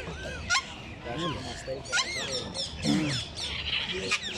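Parrots calling in an aviary: a string of short whistles that rise and fall, mixed with squawks.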